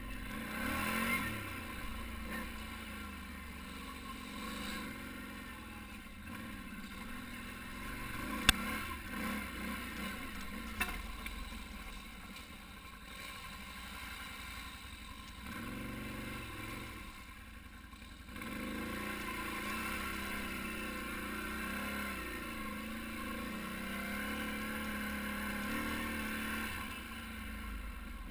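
ATV engine running on a trail ride, its pitch rising and falling with the throttle. Two sharp knocks come about a third of the way in, the first the loudest sound.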